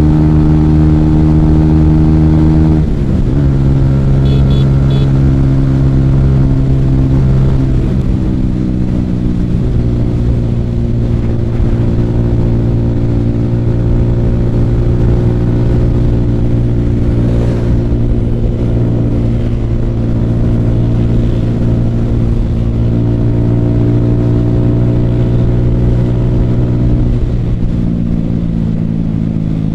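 Motorcycle engine running steadily at road speed, heard from the rider's seat. Its pitch steps down about three seconds in and again around eight seconds, then holds steady, easing down once more near the end.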